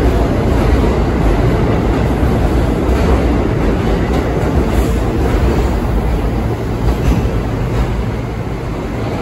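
New York City Subway A train pulling out of an underground station and running close past the platform: a loud, steady rumble of steel wheels on the rails. It fades a little near the end as the last car moves off into the tunnel.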